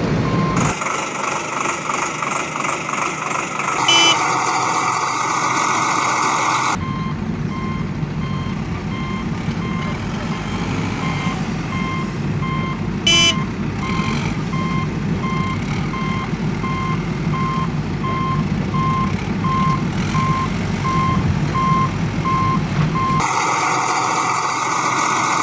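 A heavy machine's reversing alarm beeps steadily, about three beeps every two seconds, over a low diesel engine running. At the start and again near the end a harsher, higher machine noise replaces the beeping, and two short sharp clicks come about 4 and 13 seconds in.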